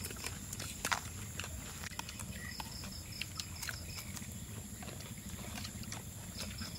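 Close-up eating sounds: chewing and lip-smacking, with sharp clicks of spoons against plastic plates. Insects chirp in short high trills in the background.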